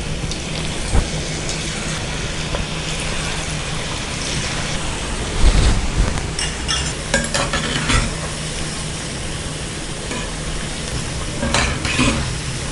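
Ragi onion pakoda deep-frying in a kadai of hot oil, a steady sizzle and bubbling. A metal slotted ladle stirs the fritters, clinking and scraping against the pan several times.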